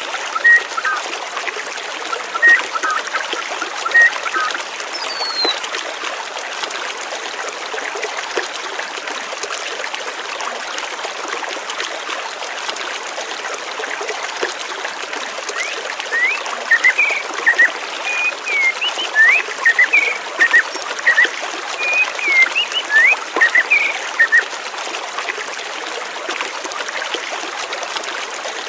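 Water trickling and flowing steadily, with birds chirping over it: a few short chirps in the first few seconds, then a busy run of quick, sliding chirps from past the middle until a few seconds before the end.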